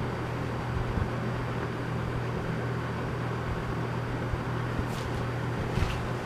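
Toastmaster model 4437 box fan running: a steady electric motor hum under the even rush of air from the blades. There are a couple of faint clicks near the end.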